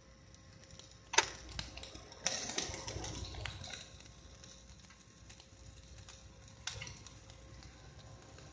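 Stick (shielded metal arc) welding arc crackling and spitting as the electrode burns along a steel pipe seam, with a sharp crack about a second in and a louder run of crackling a little later.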